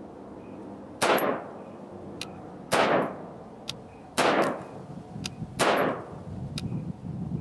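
Four deliberate shots from a 7.5-inch AR-15 pistol, about a second and a half apart, each with a short echoing tail. Between the shots there are faint light clicks.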